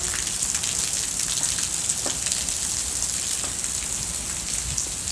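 Heavy rain pouring down steadily, with a dense hiss and scattered drops pattering on surfaces.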